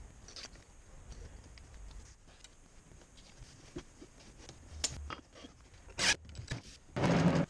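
Light scrapes and taps of a hardwood cutting board being slid and set on a plywood base. Near the end a cordless impact driver fires briefly, then runs for about half a second driving a screw into a thin wooden strip on the plywood.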